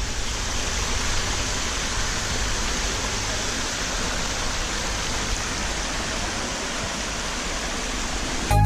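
Water from small cascades spilling over mossy rock into a shallow forest creek, a steady rushing and splashing. Music cuts in sharply right at the end.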